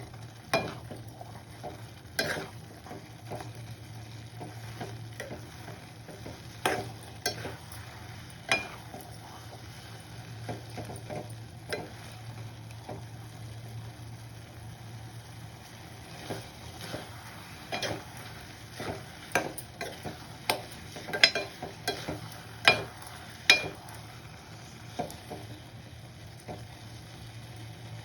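A spoon stirring food in a cooking pan, with irregular sharp taps and clinks against the pan over a steady low hum.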